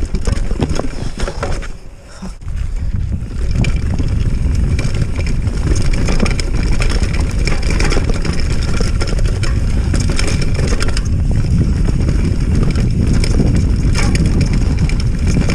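Mountain bike riding fast down a dirt singletrack: wind buffeting the microphone, tyres on dirt, and frequent rattles and knocks from the bike over bumps. A brief lull comes about two seconds in.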